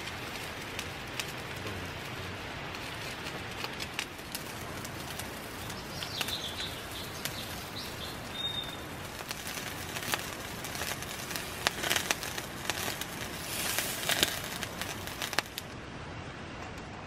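Skewers of meat and fish balls sizzling and crackling on a grill pan over a portable gas stove, a steady hiss with many small pops, with a few bird chirps about six seconds in. The sizzle cuts off near the end.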